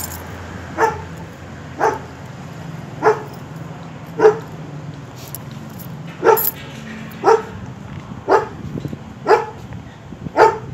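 A dog barking in single short barks, about one a second, nine in all with a short pause near the middle.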